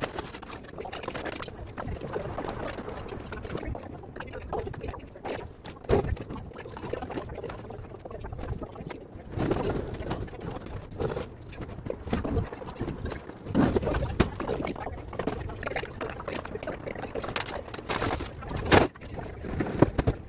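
Irregular knocks and clunks from a cargo van being loaded, over steady outdoor background noise, with faint voices now and then.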